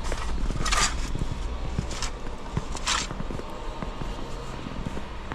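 Footsteps crunching through snow, a few steps about a second apart that fade after about three seconds, over a low steady rumble of wind on the microphone.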